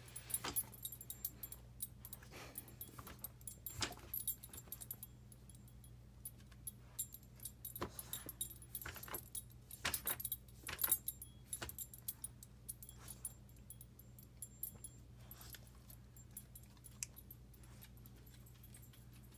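A dog pawing and nosing at a bone on a hardwood floor as if to bury it: irregular clicks and scrapes of claws and bone on the wood, with the jingle of its collar tags, busiest around the middle and thinning out toward the end. A steady low hum runs underneath.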